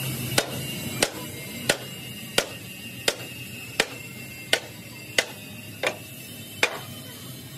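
A hammer striking metal, about ten blows at an even pace of roughly one and a half a second.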